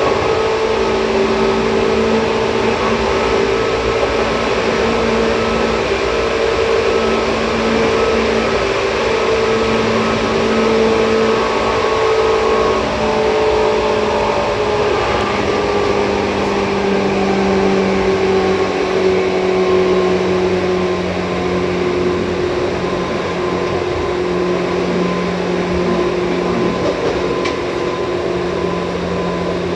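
Seibu 2000-series electric train running, heard from inside the car: a steady rumble of wheels on rail with a whine from the motors and gears. The whine drops a little in pitch about halfway through as the train eases off, then holds steady.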